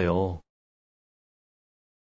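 Digital silence: total quiet after a spoken line cuts off in the first half second.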